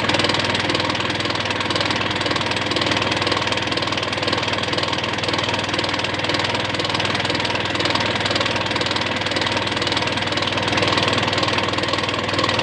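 Isuzu Elf truck's engine running steadily, with the annoying noise that is the subject of the recording.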